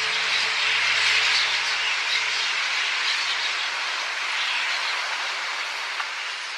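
Steady rushing whoosh of a huge starling murmuration, thousands of wingbeats with many small calls scattered through it, easing off slightly toward the end.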